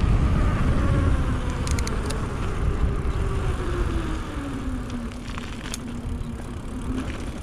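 Mountain bike coasting: the rear freehub gives a buzzing tone that slowly falls in pitch and fades as the bike slows, over heavy wind rumble on the microphone. A few light clicks about two seconds in and again near the end.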